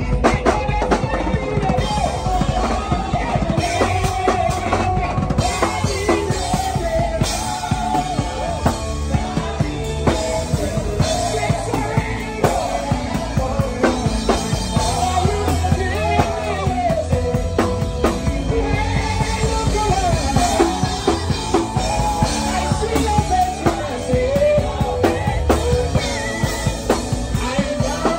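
Acoustic drum kit played live with a band: bass drum, snare and cymbals keeping a busy, steady groove under the rest of the music.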